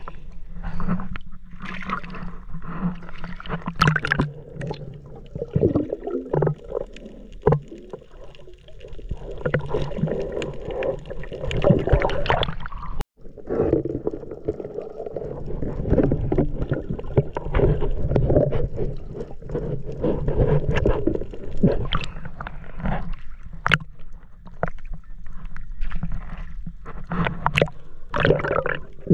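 Water sloshing and gurgling around a camera moving at and below the surface, muffled while it is underwater, with scattered clicks and splashes. The sound cuts out briefly about halfway through.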